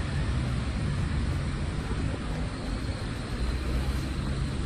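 Steady low rumble and hiss of a flooded street: traffic and running floodwater, with no clear single event.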